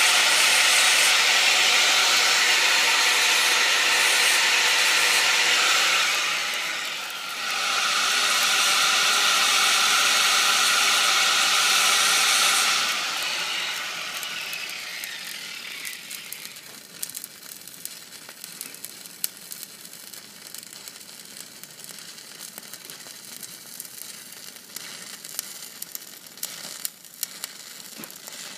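Stick welding arc on a vertical joint, a steady loud crackling hiss that dips briefly about seven seconds in. After about thirteen seconds it fades to a faint, irregular crackle with scattered clicks.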